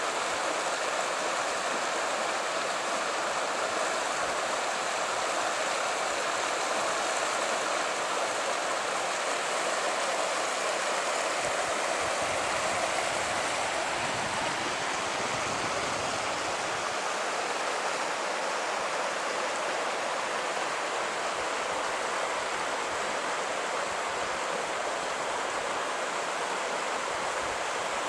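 Mountain creek rushing over rocks: a steady, even rush of water.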